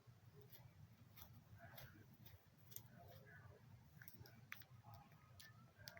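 Near silence: low room hum with faint, scattered small clicks and handling sounds, about half a dozen over the few seconds.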